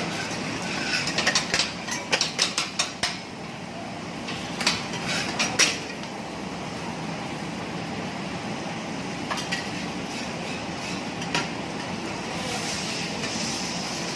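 Metal teppanyaki spatulas knocking and scraping on the steel griddle in a quick, irregular run of sharp clacks over the first six seconds, then only a few scattered clicks over a steady sizzle of food cooking on the hot plate.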